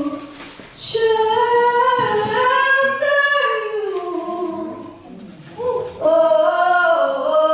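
A woman singing with little or no accompaniment, in long held notes that glide between pitches. The voice breaks off briefly near the start and again about five seconds in.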